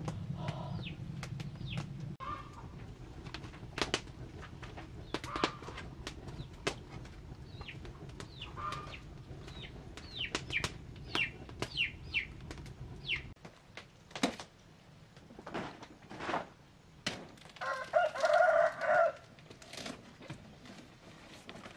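A rooster crowing once near the end, a pitched call of a little over a second and the loudest sound here, with many short, high, falling chirps from birds scattered through the rest.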